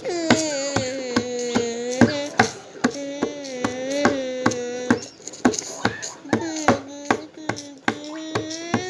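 A sung or played melody of held, slowly wavering notes over a steady beat of sharp taps, about two or three a second.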